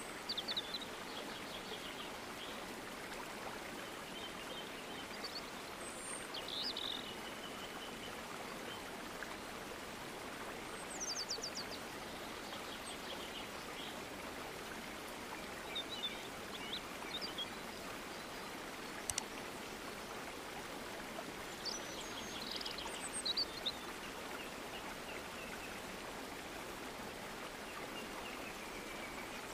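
Steady rushing background noise with birds chirping now and then, short high chirps and trills scattered a few seconds apart.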